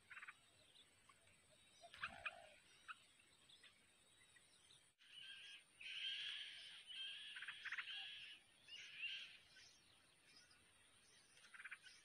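Yellow-vented bulbuls at a nest with chicks: high chirps and calls, a few at first, then a dense run of several seconds around the middle as the parent feeds the nestlings.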